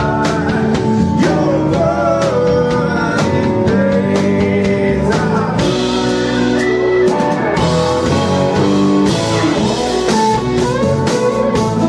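Live rock band playing, with guitars and a drum kit keeping a steady beat.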